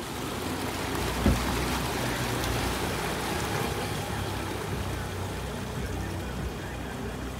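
Four outboard motors running slowly in gear, a low steady hum, with the propeller wash churning the water. A single sharp thump about a second in.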